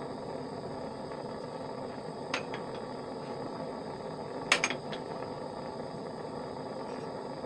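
Light metallic clinks of tools and crucible being handled at a small melting furnace: one faint clink about two and a half seconds in, then a louder quick cluster of clinks about two seconds later, over a steady hum.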